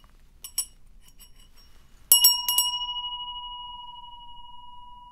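Small three-pronged metal bell of a bungeo-ppang (fish-shaped) wind chime: a few light clinks, then about two seconds in it is struck two or three times in quick succession and rings out with a very clear tone that slowly fades.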